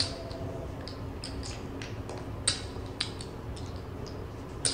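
Casino chips clicking against each other as bets are stacked and pushed onto the felt: a scattering of short, sharp clicks, one every half second or so, over a low steady hum.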